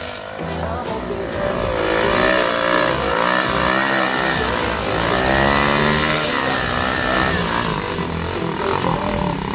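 Small dirt bike's engine revving hard and unevenly, its pitch rising and falling again and again, as the bike is pushed up a steep loose bank with the rear wheel spinning and throwing dirt. It gets louder about a second and a half in.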